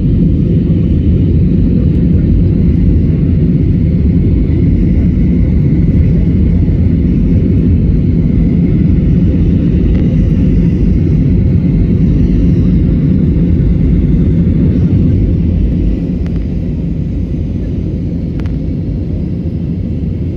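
Loud, steady low rumble of an Airbus A320neo's engines and airflow heard from inside the passenger cabin during departure. The level drops a step about 16 seconds in.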